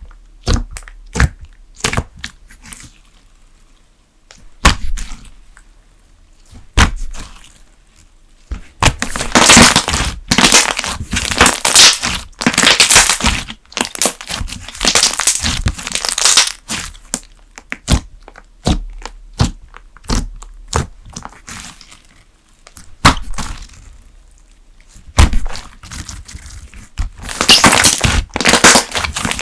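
Thick slime being poked and squeezed by hand, giving sharp air-pocket pops and clicks, then longer stretches of dense crackling squishing as it is kneaded, and again near the end.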